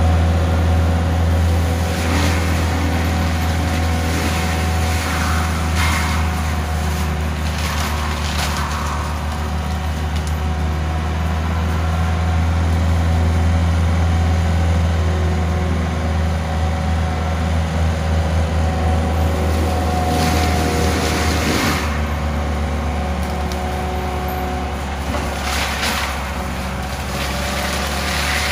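CAT 299D3 compact track loader's diesel engine running under load as its CIMAF forestry mulcher head spins, a steady low drone with a faint whine. About five times the sound turns rougher and hissing for a second or two as the mulcher drum grinds into brush.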